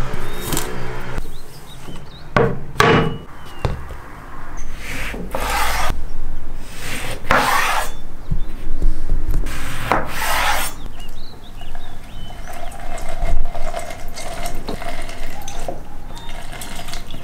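Kitchen knife cutting through oranges on a wooden cutting board: several separate slicing strokes, each about half a second to a second long. Quieter rubbing follows near the end as orange halves are turned on a plastic hand juicer.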